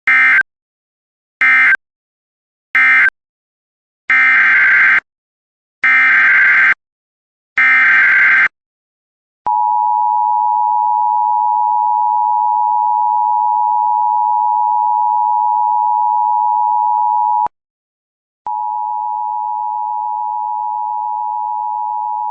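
Emergency Alert System signalling: three short screeching SAME data bursts that close the previous alert, then three longer SAME header bursts that open a new one. Then the EAS two-tone attention signal sounds steadily for about eight seconds, breaks off for a second, and comes back somewhat quieter.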